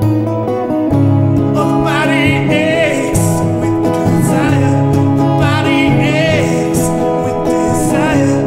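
A man singing while strumming an electric guitar with a capo: steady strummed chords, with long sung notes that waver in pitch coming in about two seconds in and returning several times.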